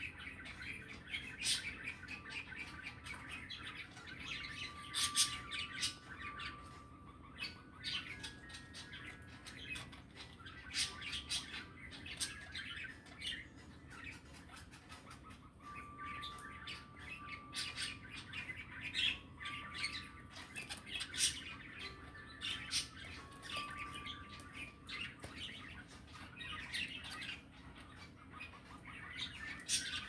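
Pet budgerigars chattering: a busy run of short chirps and squawks, with brief held whistled notes scattered throughout.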